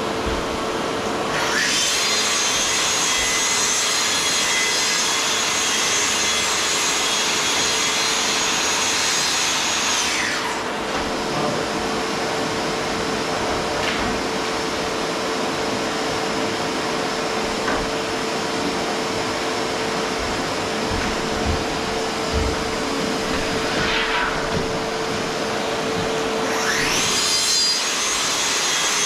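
Festool track saw cutting plywood: the motor whines up about two seconds in, runs through the cut, and winds down around ten seconds in, then spins up again near the end. A steady machine hum runs underneath.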